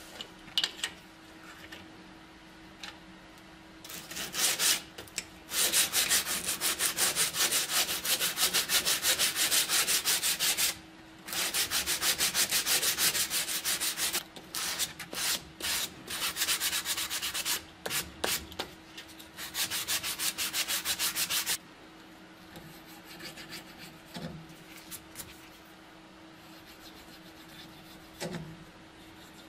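Sandpaper on a sanding block rubbed rapidly back and forth over a Mauser 98K bayonet's ribbed grip panel held in a vise, in long runs of fast strokes broken by short pauses. At about 22 seconds the sanding stops, leaving only a few faint light scrapes.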